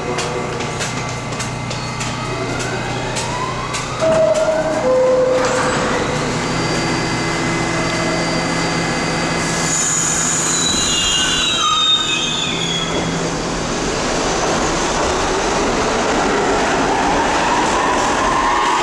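R-68 subway train at a station platform: a two-note falling door chime about four seconds in, then the train pulls out with rising motor whine and wheel squeal.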